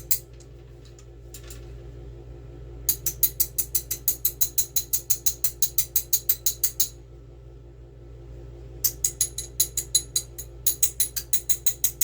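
A wrench tapping rapidly on an Avid hydraulic disc brake, about five light metallic taps a second in three runs, to knock air bubbles loose during a bleed. A steady low hum underneath.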